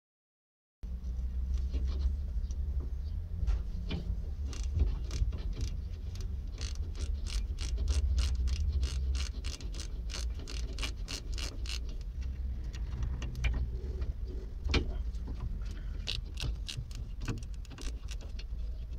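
Socket ratchet clicking in quick runs as a 10 mm socket is turned on a fitting at a Ford Transit's rear brake caliper, over a steady low rumble. The sound starts suddenly about a second in.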